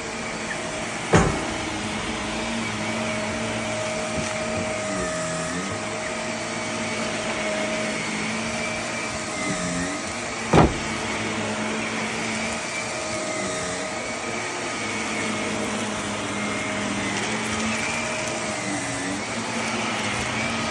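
Vacuum cleaner running steadily while pushed over carpet, its motor pitch dipping briefly about every four seconds. Two sharp knocks, about a second in and again about halfway through.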